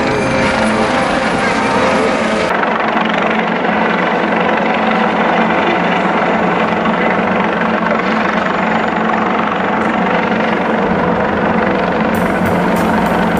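Helicopter flying low overhead, its rotor and engine noise loud and steady. Music with drums comes in near the end.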